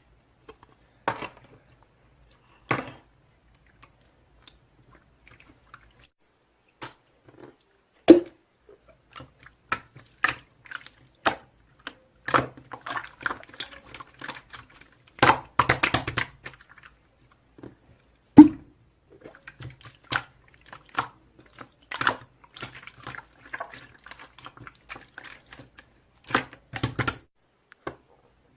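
Slime being pressed and worked by hand, making irregular sticky clicks, pops and crackly squishes with short pauses between them.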